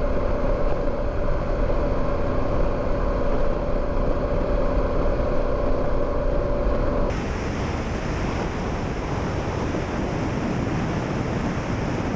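Harley-Davidson Pan America's 1250 cc V-twin and the wind at highway speed, about 65 mph: a steady running sound with a steady whine over it. About seven seconds in it changes abruptly to a rougher rush of wind buffeting the microphone.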